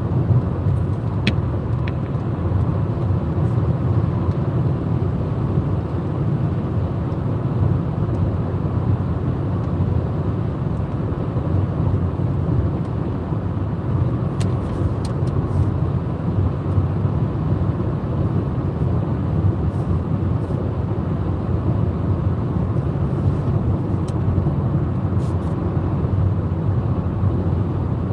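Steady low rumble of a car driving at highway speed, tyre and engine noise heard from inside the car.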